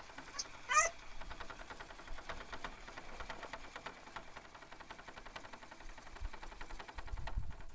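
Axial SCX10.3 scale RC crawler's brushed drivetrain ticking rapidly and faintly as it crawls slowly over rock. A brief high squeal comes about a second in, and a low rumble near the end.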